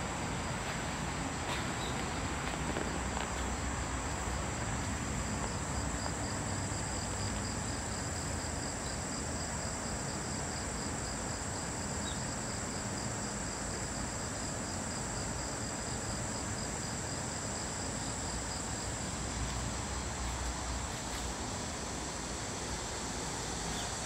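Insects calling: a steady high-pitched buzz, joined through the middle stretch by a second, fast pulsing trill.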